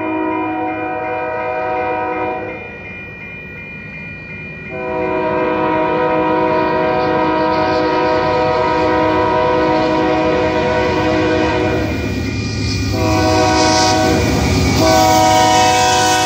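Union Pacific diesel locomotive's air horn blowing the grade-crossing signal as the train approaches. A long blast ends, and after a short pause come a long blast, a short one and another long one. The rumble of the engine and wheels grows as the locomotive reaches the crossing near the end.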